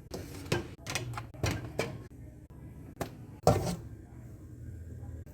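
Irregular knocks and clicks of things being handled in a refrigerator, such as containers, lids and shelves, with a louder knock about three and a half seconds in.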